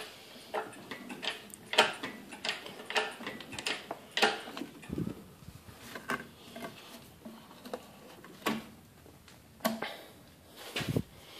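Scattered metallic clicks, clinks and knocks from parts and tools being handled in a car's engine bay, coming irregularly several times a second at times.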